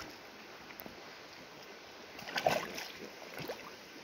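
Footsteps wading through a shallow river, water sloshing and splashing over a steady wash of running water, with the loudest splash a little past halfway through.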